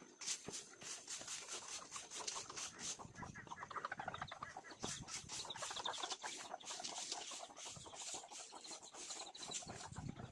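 Chickens clucking, many short calls with scattered clicks among them.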